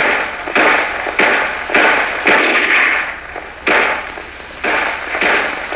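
Irregular rifle fire: about eight single shots at uneven intervals, each a sharp crack with a short echoing tail.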